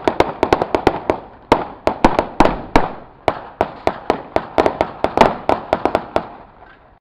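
Gunfire in an exchange of shots between more than one gun: about thirty rapid, irregularly spaced shots, some louder and some fainter, each with a short echo, stopping near the end.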